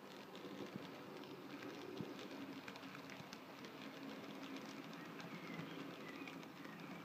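N gauge model train running past: a faint, steady low motor hum with many small clicks from the wheels on the track.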